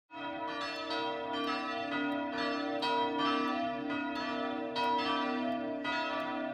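A peal of bells ringing, struck about twice a second, each strike ringing on under the next.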